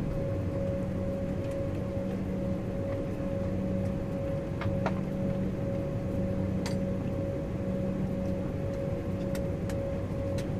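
Airliner cabin noise as the jet taxis slowly on idling engines: a steady low drone with a constant mid-pitched whine, and a few faint clicks.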